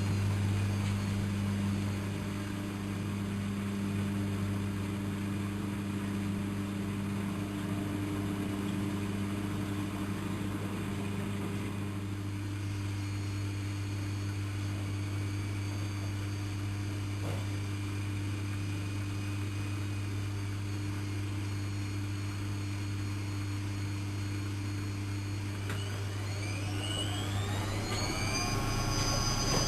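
Lloyds 825 washing machine running with a steady low hum. The hum's tone shifts about halfway through, and near the end a motor whine rises in pitch and then settles as the machine speeds up.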